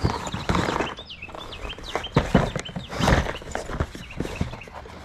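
A cardboard shipping box being opened by hand: irregular knocks, scrapes and rustles of cardboard and packing. High chirps come through in the background during the first two seconds.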